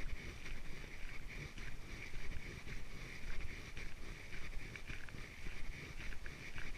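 Footsteps on a trail at a steady walking pace, about two steps a second, with wind rumbling on the microphone and a steady high-pitched hum behind them.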